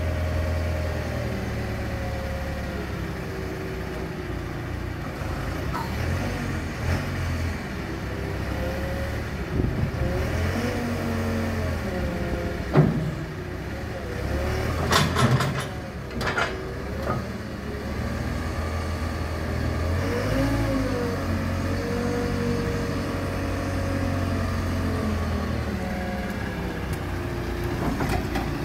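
Manitou MT1440 telehandler's diesel engine running under hydraulic work, its pitch rising and falling as the boom is brought in and the stabiliser legs are lifted. A few sharp metallic knocks come about halfway through.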